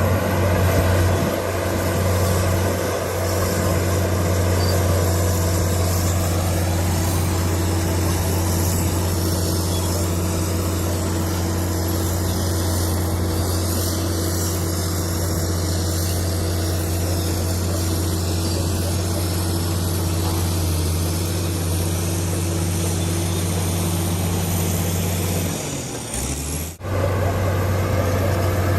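Komatsu D65PX bulldozer's diesel engine running steadily at a constant pitch. Near the end it dips and cuts off abruptly for a moment, then comes back.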